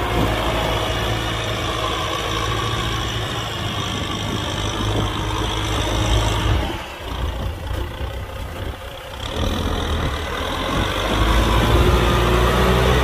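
Kubota M6040 tractor's four-cylinder diesel engine running while working a plow. About halfway through its low engine note falls away for a few seconds, then comes back louder and rises in pitch near the end.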